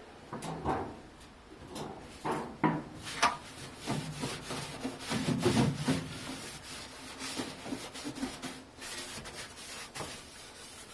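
Irregular hand rubbing and scraping strokes on a surface, with a few light knocks.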